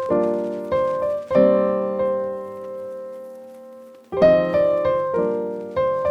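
Background music: piano chords, struck every half second or so, with one long chord left to ring and fade for about three seconds in the middle.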